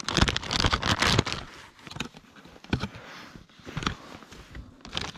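Rustling and scraping handling noises with scattered sharp clicks, busiest in the first second or so, then lighter and patchier.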